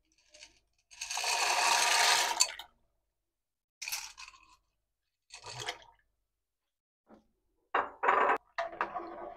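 Dry macaroni poured into an aluminium saucepan of water: a dense rush of small hard pieces and splashing about a second in, lasting about a second and a half, followed by a few shorter knocks and splashes.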